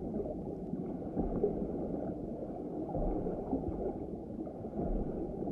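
Muffled underwater ambience: a steady, dull, low gurgling rumble with nothing high-pitched in it, and a soft deep thump every couple of seconds.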